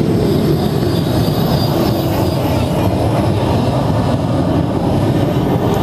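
Loud, steady engine rumble of a pulling vehicle under power, with a faint high whine above it.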